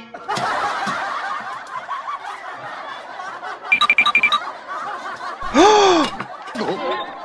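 Canned laughter track, a crowd of voices laughing, with a few short bright tones about four seconds in. Near the end a brief cartoon sound effect sweeps up and then down in pitch.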